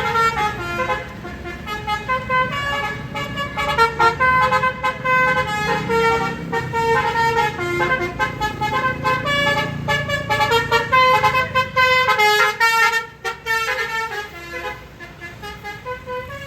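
Basuri telolet multi-tone electric horn playing a long melody of quickly changing notes, several tones at once, over a low engine rumble. It dies down about thirteen seconds in, and only fainter notes follow.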